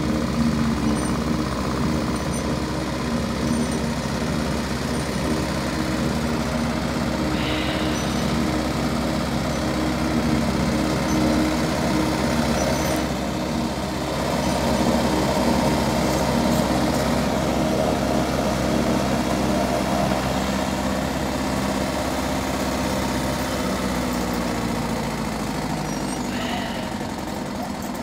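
Engine-driven corn forage harvester running steadily as it chops standing corn and blows it into a wagon, easing slightly near the end.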